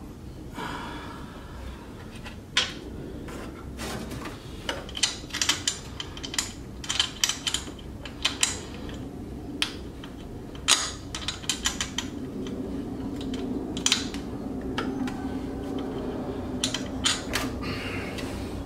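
Irregular metallic clicks, taps and clanks of hand tools and metal fittings knocking against engine parts while charge-pipe bolts and clamps are worked into place, some coming in quick runs of several clicks.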